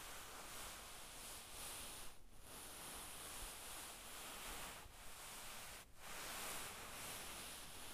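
A hand sliding and rubbing over cloth, a soft, continuous rustle. It pauses briefly about two seconds in and again about six seconds in.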